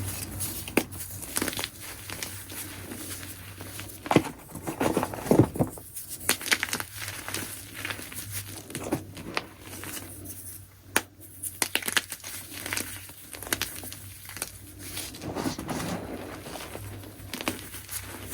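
Chunks of gym chalk being crushed: irregular soft crunching and crackling with sharp little snaps, loudest in a cluster about four to five seconds in and again near the middle.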